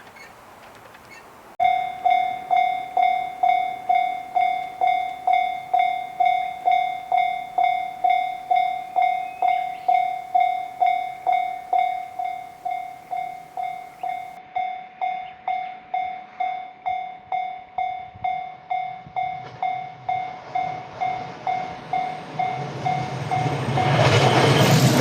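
Japanese level-crossing warning bell starting suddenly about one and a half seconds in and ringing its repeated "kan-kan" tone at about two strokes a second. Near the end a JR Narita Line train approaches, its rumble rising over the bell.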